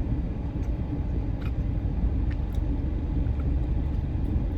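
Steady low rumble, like a running vehicle, with a few faint clicks scattered through it.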